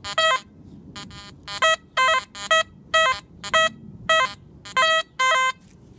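XP Deus metal detector sounding repeated short target tones, about two a second, as the coil is swept back and forth over a buried target. The first few tones shift in pitch, then they settle into an even, repeating beep: a good signal.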